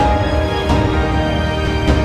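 Background soundtrack music: held chords over a deep bass, with two percussive hits.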